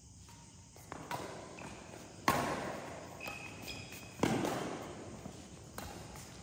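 Badminton rally: several sharp racket strikes on a shuttlecock, the loudest about two and four seconds in, each ringing on in a large echoing hall.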